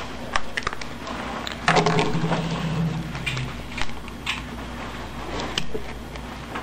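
Handling sounds of a soft gel case being fitted onto an iPod Touch: scattered small clicks and taps, with a low steady hum for about a second and a half near the start.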